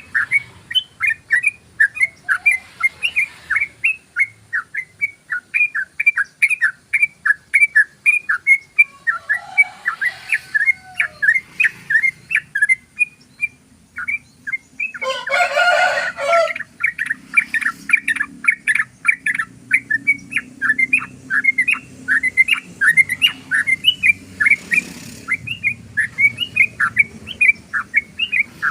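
Yellow-vented bulbul (trucukan) in its long rapid chattering song: short bright notes repeated about four a second with hardly a pause. About halfway through, the run breaks off for a moment and a single loud, harsh burst stands out.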